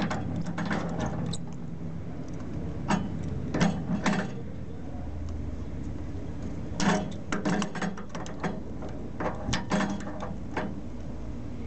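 A wrench tightening a flare connector into a water heater's gas thermostat: irregular clusters of short metallic clicks and scrapes as the wrench is set on the fitting and turned.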